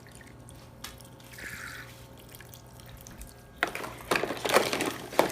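Water trickling from a toy kitchen sink's faucet. From about three and a half seconds in, there is louder splashing and the clatter of plastic dishes being washed in the basin.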